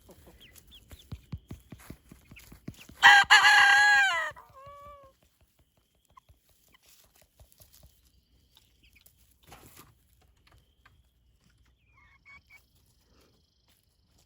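A rooster crows once, loud and drawn-out, about three seconds in, the call dropping in pitch at its tail. Softer clucking and pecking clicks come before it, and only faint scattered bird sounds follow.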